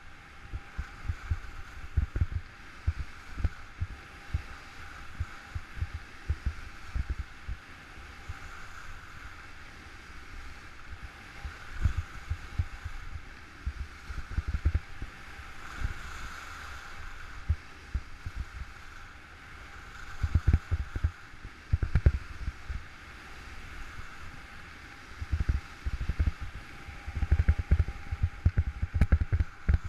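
Wind buffeting a body-worn camera's microphone during a ski descent, irregular low thumps coming in clusters, over a steady hiss of skis running on packed snow.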